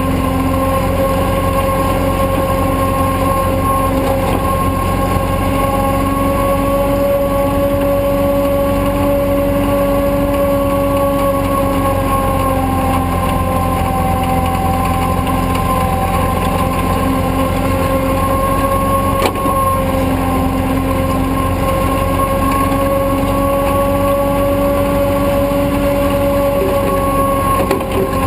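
Tow truck's engine and drivetrain running steadily under load as it drives over beach sand towing an SUV on a rope: an even drone with a held whine that drifts slightly in pitch.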